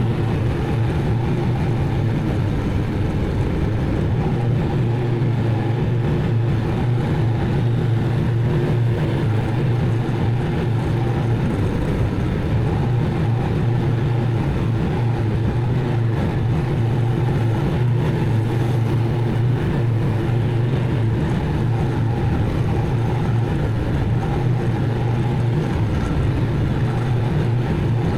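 Zero-turn mower engine running steadily at working speed, a constant low hum with no change in pitch.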